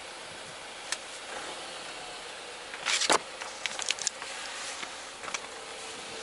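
Ford Transit 350M's 2.5-litre diesel engine idling steadily just after starting. A cluster of knocks and clicks comes about three seconds in, with single clicks near one second and near the end.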